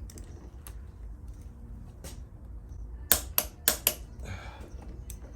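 Sharp metallic clicks from a click-type torque wrench tightening handlebar clamp bolts to 25 ft-lb: two single clicks, then a quick run of four loud ones about three seconds in, over a low steady hum.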